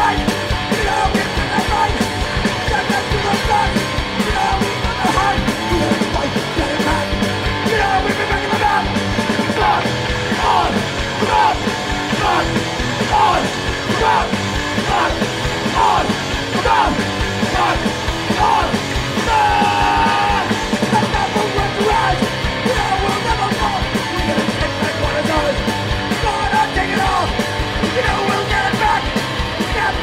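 Hardcore punk band playing live, loud and continuous, with shouted vocals over fast, dense drumming.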